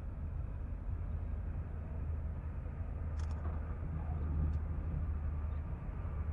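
Aero Spacelines Super Guppy's turboprop engines giving a steady low rumble as the big cargo plane rolls along the runway, with a couple of faint ticks about halfway through.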